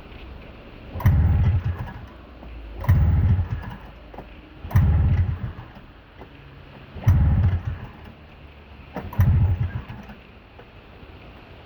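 Snowmobile engine being pull-started, turning over in five pulls about two seconds apart without catching: the sled won't fire.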